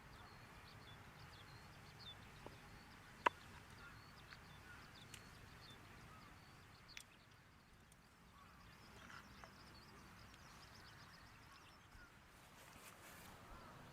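Quiet outdoor ambience with faint, scattered bird chirps, and one sharp click about three seconds in, with a smaller tick later.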